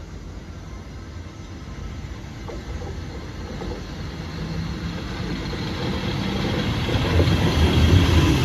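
A train approaching, its rumble growing steadily louder as it draws near.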